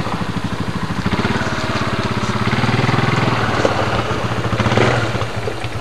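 Four-wheeler ATV engine running steadily close by, with an even beat.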